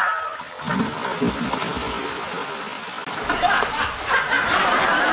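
Water splashing as a person plunges into and wades through a shallow, rocky river, over the steady rush of the stream.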